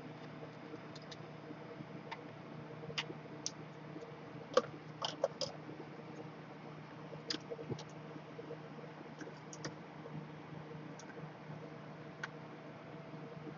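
Scattered small clicks and taps, about eight in all, as gloved hands handle a laptop's LCD panel, its display cable and the bare motherboard, over a steady low hum.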